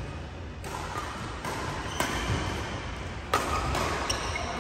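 Badminton rally: the shuttlecock is struck back and forth by rackets, a sharp hit roughly every second and a third, each echoing in a large hall. Short high squeaks from the players' shoes on the court come in the second half.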